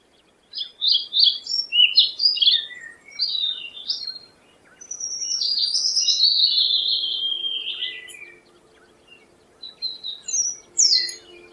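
Songbird singing: a run of quick, warbled phrases, then one long phrase that slides downward in pitch, then a few more short notes near the end.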